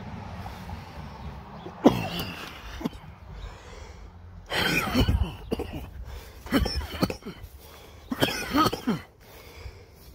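A man coughing and clearing his throat in four or five short bouts, over a low steady rumble.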